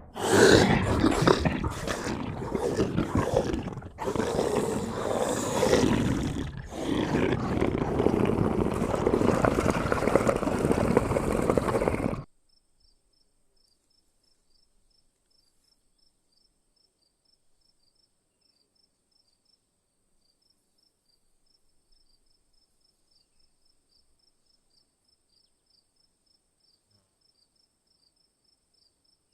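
A loud, rough animal roar in three long stretches, cutting off suddenly about twelve seconds in. Then near silence with faint, rapid insect chirping.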